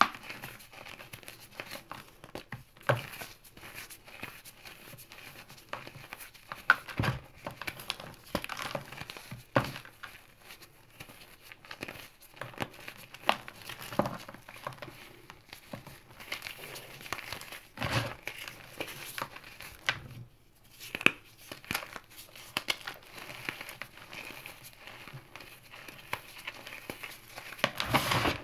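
Hands crumbling and squeezing crisp chunks of damp-set gym chalk and cornstarch: an irregular run of soft crunches and crackles with sharp snaps here and there, with a short pause about twenty seconds in.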